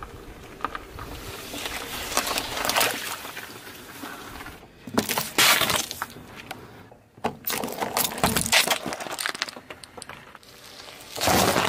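A car tyre rolling over and crushing small objects one after another: balloons, a plastic drink bottle and plastic jelly cups. This gives about four separate bursts of crunching and cracking.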